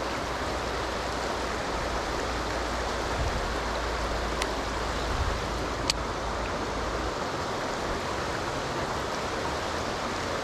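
Shallow river water running fast over stones, a steady rush. A low rumble underneath stops about seven seconds in, and two sharp clicks come in the middle.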